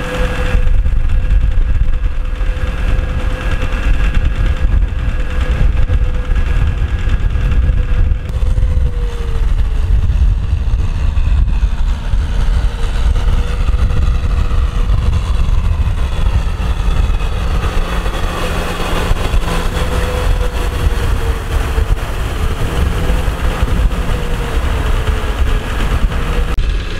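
Kubota M6040SU tractor's four-cylinder diesel engine running steadily under load while pulling a rotavator through flooded paddy mud. Its note dips and wavers a few times in the second half.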